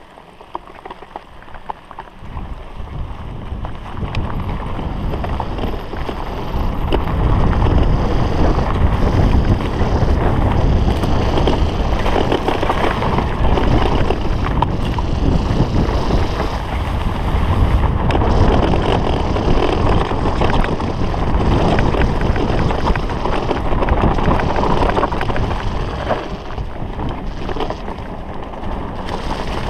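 Wind buffeting the microphone of a rider-mounted camera on a mountain bike going downhill, over the rumble and rattle of knobby tyres on a bumpy grass and dirt trail. It builds over the first several seconds as the bike gathers speed, then stays loud, with many small knocks from bumps.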